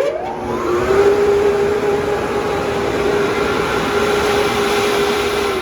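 Spencer 10 HP, 15 PSI turbo compressor blower (air agitation blower) starting up. Its whine rises in pitch over the first second, then it runs at speed with a steady whine over a rushing of air. Near the end the whine stops and the sound starts to die away as it is switched off.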